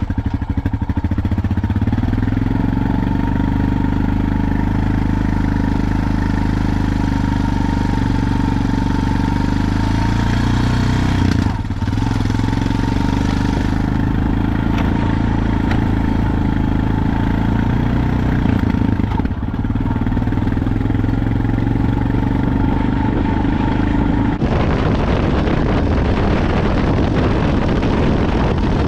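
A motor vehicle's engine running at a steady speed. About 24 seconds in, the even hum gives way to a rougher, noisier sound.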